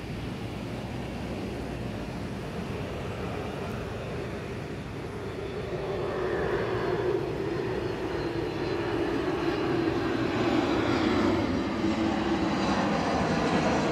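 Boeing 737 MAX 8's CFM LEAP-1B jet engines on final approach: a steady rumble that grows louder as the airliner comes nearer, with a tone sliding slowly lower in the second half.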